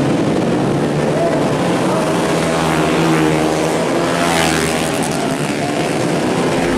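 Several 150cc four-stroke racing underbone motorcycles running hard at high revs, their engine notes overlapping. One passes close by about four seconds in, its pitch sweeping as it goes past.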